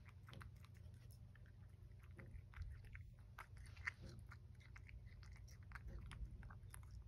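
A cat chewing boiled chicken breast, heard as faint, irregular little clicks and smacks of its mouth. It chews awkwardly, not being used to this food.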